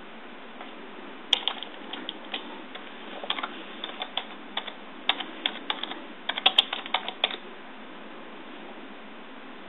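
Typing on a computer keyboard: irregular runs of key clicks that start about a second in and stop a couple of seconds before the end, over a steady background hiss.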